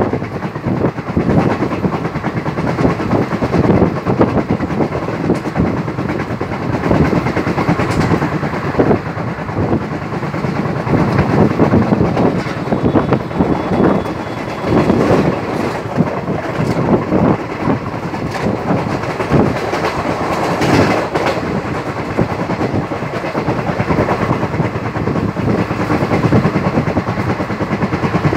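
Passenger train coach in motion, heard from its open doorway: a steady running noise with the wheels clattering irregularly over the track.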